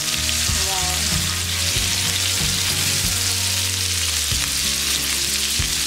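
Marinated chicken pieces on skewers sizzling steadily in shallow oil in a nonstick frying pan, with a few light clicks as tongs turn them against the pan. A low steady hum runs underneath.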